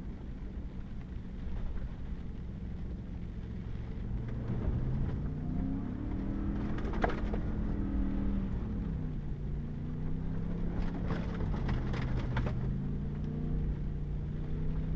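Pickup truck's engine and road noise heard from inside the cab on a muddy dirt road, the engine pitch rising and falling twice as the truck speeds up and eases off. Mud and water spatter hard against the windshield about seven seconds in and again in a cluster of hits a few seconds later.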